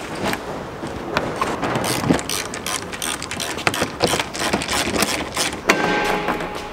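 A screwdriver working the quarter-turn fasteners on a Cirrus SR22's upper engine cowling: a run of irregular clicks and rattles, then a louder scrape about six seconds in as the cowl panel is released.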